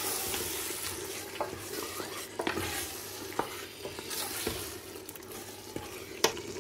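Mutton, spices and chopped tomatoes sizzling in an open pressure cooker as they are stirred, with the stirring utensil scraping and knocking against the pot now and then.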